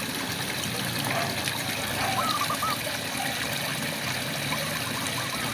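Steady rain falling, with frogs calling over it in short chirping notes that come in quick runs of three or four, about two seconds in and again near the end.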